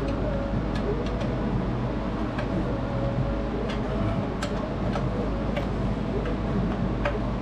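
Sparse, irregular metallic clicks and taps of a hand wrench against fuel-line fittings in a diesel engine bay, over a steady low hum.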